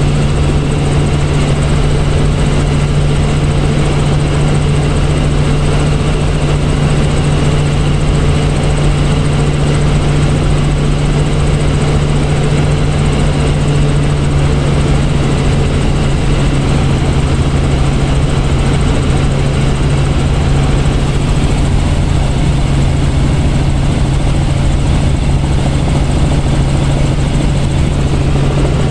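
Robinson R44 Raven II helicopter in steady cruise, heard from inside the cabin: its rotors and six-cylinder piston engine make a constant low drone over a wash of noise.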